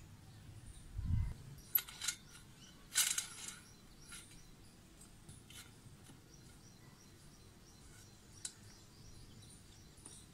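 A few sharp metal clicks and knocks from a homemade steel-pipe tripod being handled and adjusted, with a low thump about a second in and a short cluster of clinks around three seconds in.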